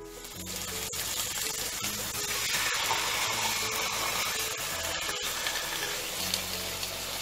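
Marinated pork steaks sizzling as they are laid into hot oil in a frying pan: a steady frying hiss that swells a couple of seconds in.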